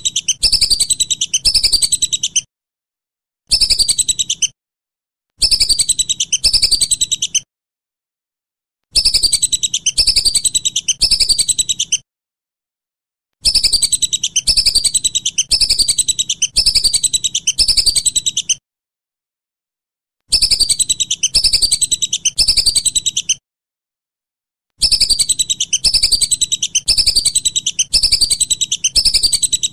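Whistling duck (belibis) calls: rapid runs of short, high whistles falling in pitch. They come in bursts of about one to five seconds, broken by clean silent gaps.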